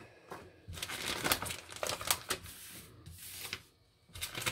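Clear plastic packaging and a paper chart crinkling and rustling as they are handled, in a run of quick crackles that pauses briefly near the end.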